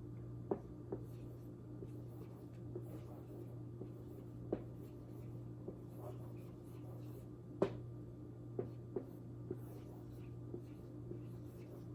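Someone writing by hand: faint scattered taps and scratches of a pen or marker, a few sharper knocks among them, over a steady low hum.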